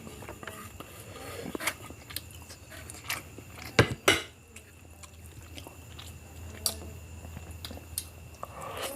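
A person chewing and eating spicy biryani close to the microphone, with scattered wet mouth clicks. Two louder clicks come close together about four seconds in.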